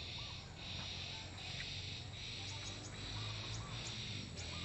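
Outdoor insect chorus: a high buzzing that pulses with short breaks about once a second, with faint bird chirps over it.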